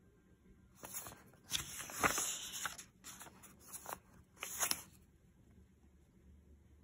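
Paper pages of a picture book being turned and handled, giving a series of short rustles over a few seconds, the loudest about two seconds in.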